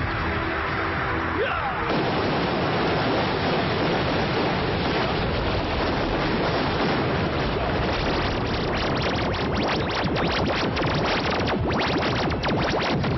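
Film score music under a loud, dense rush of noise from explosion effects, with many rapid sharp cracks in the second half.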